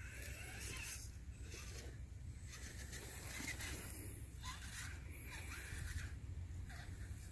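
Radio-controlled scale crawler trucks creeping over a dirt trail: faint whirring of the electric motor and gears, with small clicks and scuffs of the tyres on dirt and twigs, over a low steady rumble.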